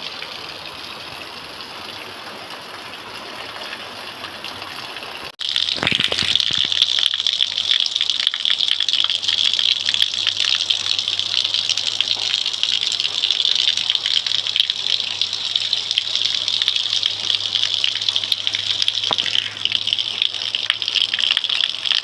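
Steady rain, a dense hiss of falling drops, getting suddenly much louder about five seconds in and staying heavy after that.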